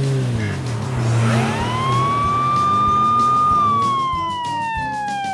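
Police siren wailing: one long tone that rises about a second in, holds steady, then slowly falls, starting to rise again at the very end.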